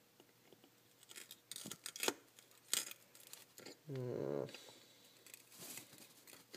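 Scattered sharp clicks and scrapes of hard metal being handled as solidified bismuth is worked at to break crystals loose. A short grunt from a person about four seconds in.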